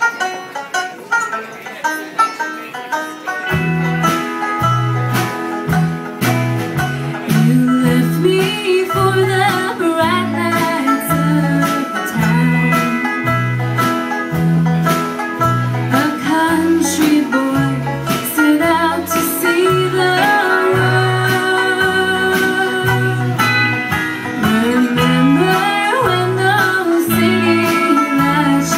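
Live country stringband music: banjo and acoustic guitar picking, with an electric bass coming in about three and a half seconds in, walking between low notes, and a woman singing over them.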